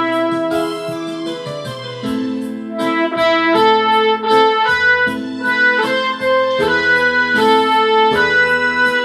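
Instrumental music: a held wind-instrument melody over an electric-piano accompaniment.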